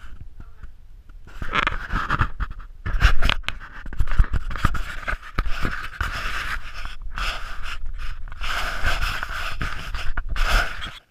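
A man breathing heavily close to the microphone while crawling through loose attic insulation, with rustling and scraping of the insulation against the camera and knocks of handling noise.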